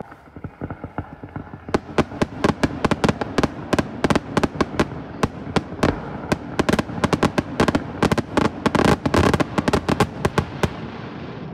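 Aerial fireworks going off in a rapid string of sharp bangs, several a second. The bangs start about two seconds in and stop about a second before the end.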